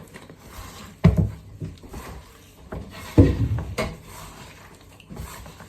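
Kitchen handling noises: two dull thumps about two seconds apart, with softer knocks and rustling between.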